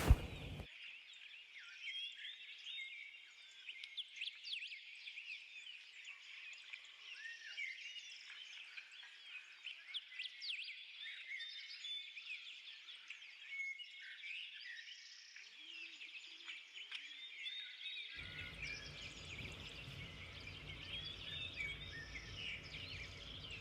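Many small birds chirping, a faint, dense chatter of short calls. A low steady rumble joins toward the end.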